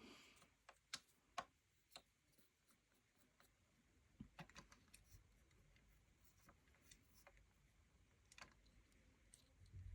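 Very quiet, scattered faint plastic clicks of fidget cubes being handled, their rolling balls being tried one against the other: a few clicks in the first two seconds, a cluster about four to five seconds in, and a few more near the end.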